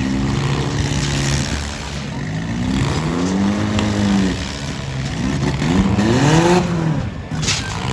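Four-cylinder demolition derby car engines revving up and down, their pitch rising and falling in repeated swells.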